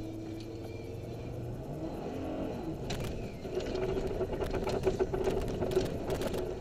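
Vehicle engine running as it drives over a rough, rutted dirt road, heard from inside the cab. Its pitch shifts about two seconds in, then it runs louder and steadier under load, with many sharp rattles and knocks from the bumps in the second half.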